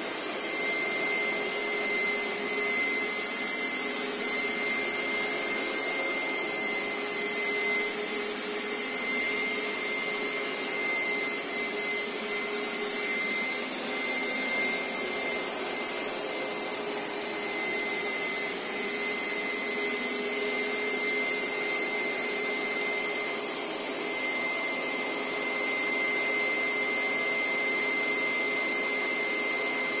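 Hoover SteamVac Dual V carpet cleaner running steadily as it is pushed over a rug, its suction motor holding a constant whine while it draws cleaning solution back out of the carpet.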